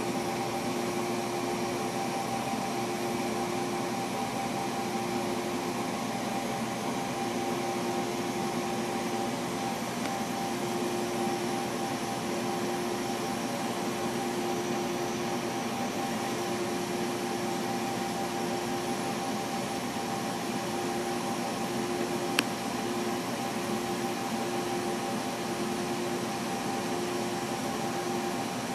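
Trotec laser cutter running while vector cutting acrylic: a steady rush of air with a steady hum, and a mid-pitched tone that comes and goes every few seconds. A single sharp click about 22 seconds in.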